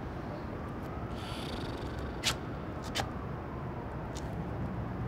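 Steady low rumble of distant city traffic, with two sharp clicks of hard-soled shoes stepping on rooftop paving a little over two and three seconds in.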